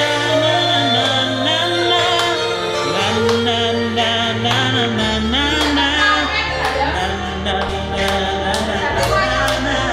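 Karaoke song: a voice sings the melody over a backing track with held bass notes that change every couple of seconds.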